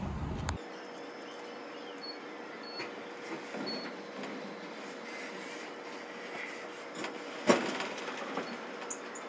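Truck-yard noise: a low rumble that stops about half a second in, then a faint steady hum with scattered knocks and clanks, the loudest a sharp bang about seven and a half seconds in.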